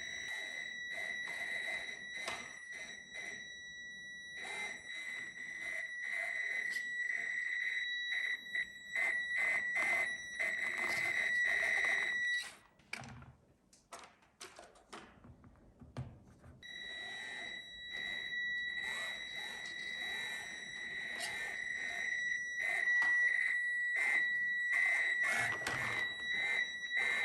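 Small electric drive of a 1/18 FMS Chevrolet K10 RC crawler: a steady high-pitched motor whine under throttle with clicks and knocks from the drivetrain and tyres working over obstacles. The whine stops for a few seconds about halfway through, then starts again.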